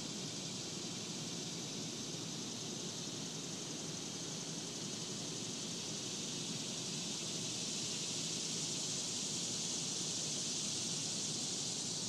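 Cicadas droning, a high steady hiss that swells a little past the middle, over a low outdoor rumble.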